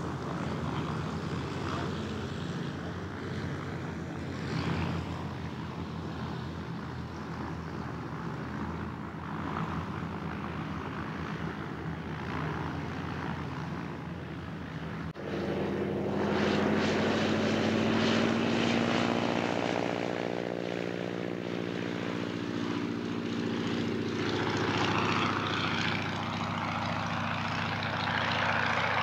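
Boeing Stearman biplane's radial engine and propeller running steadily at low power while taxiing. After a cut about halfway through it is louder, at higher power, its note falling over several seconds as the biplane passes.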